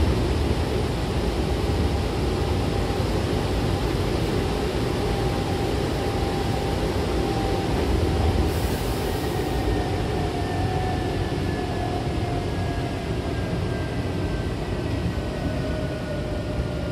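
Hankyu commuter train running, heard from inside the car by the doors: a steady rumble of wheels on rail, with a faint whine that falls slowly in pitch through the second half. A brief hiss comes about eight seconds in.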